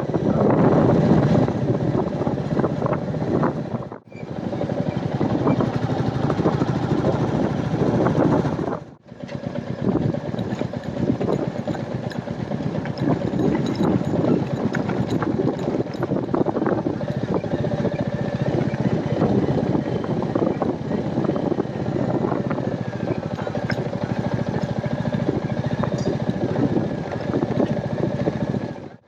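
Royal Enfield Meteor 350's single-cylinder engine running while the motorcycle is ridden, a steady run of rapid firing pulses. The sound cuts out briefly twice, about four and nine seconds in.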